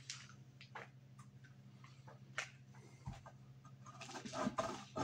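Pecorino romano grated on the finest holes of a metal box grater: a few light taps and clicks as the cheese is set against the grater, then from about four seconds in, quick rasping strokes several times a second.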